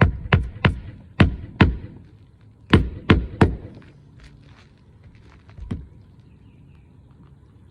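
A hammer striking roofing nails while fixing a replacement asphalt shingle. There are sharp blows in quick groups of two or three, about nine in all, with a pause before a last single blow near the end.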